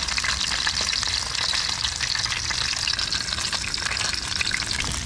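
Whole redfin perch frying in hot oil in an aluminium mess tin on a butane canister stove: a steady sizzle with dense small crackles, over a steady low rumble.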